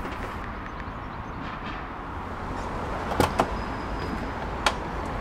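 Van driver door being opened: its latch clicks twice about three seconds in, with another click near the end, over a steady low outdoor hum.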